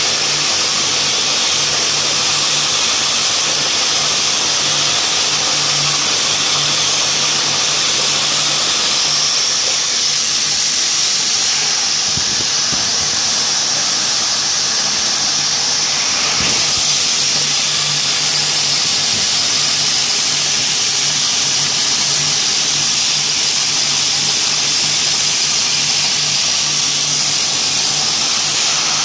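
Textile ring-twisting frame running: a loud, steady whir and hiss of many spinning spindles and rollers over a low, even motor hum.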